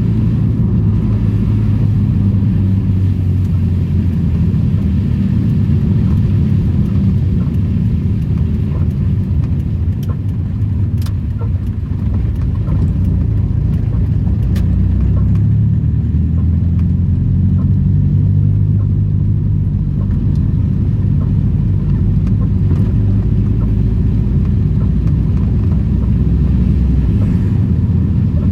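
Old Daihatsu Charade being driven: a steady low engine drone with road noise, its pitch shifting as the speed changes and easing briefly about midway through.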